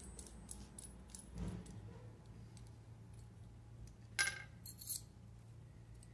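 Small metal clinks and taps from the stainless beer-tap shank and its nut and fittings being unscrewed and handled, with a louder clink about four seconds in. A faint steady low hum runs underneath.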